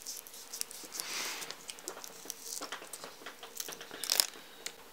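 Faint handling noises of a small electronics module being stuck down with self-adhesive Velcro: scattered light clicks and short crinkling rustles, a louder rustle about a second in and another after about four seconds.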